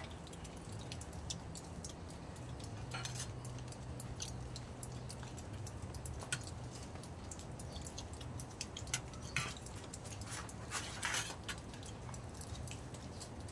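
A metal spoon clinking and scraping in a large stainless steel tray of curry, in scattered light clicks that bunch together late on, over a low steady hum.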